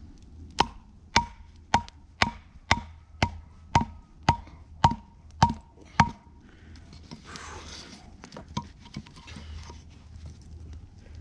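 Eleven sharp chopping strikes, about two a second, each with a brief ringing note, then softer rustling after they stop.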